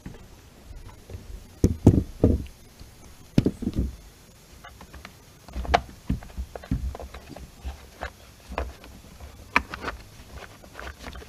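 Hands pulling and rocking the plastic top cover of a Poulan Pro chainsaw that is stuck in place: irregular plastic knocks and clunks, the heaviest about two seconds in, with sharper clicks near the end.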